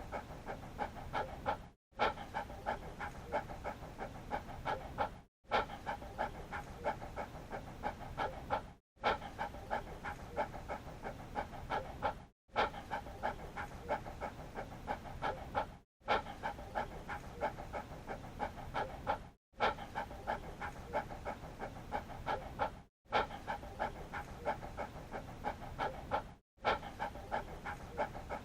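A dog panting rapidly, in quick even breaths, in a short stretch repeated over and over with a brief silent break about every three and a half seconds.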